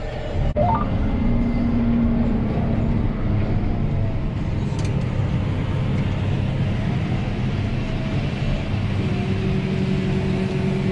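John Deere 8R 410 tractor's diesel engine running steadily under way, heard from inside the cab as a continuous low drone. A steady whine joins in near the end.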